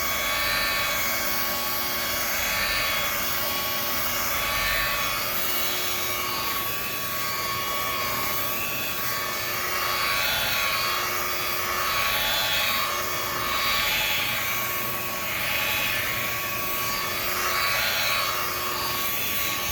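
Bauer variable-speed buffer running steadily, its polishing pad working machine polish into a plastic tail light lens. The whine swells and eases every couple of seconds as the pad is moved back and forth across the lens.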